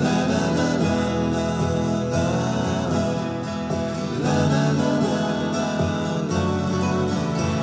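Background music: a melody gliding over sustained low chords.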